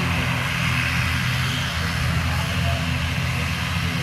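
Twin-turboprop airliner (ATR 72) taxiing on the runway, its engines and propellers running steadily: a low hum under a broad hiss.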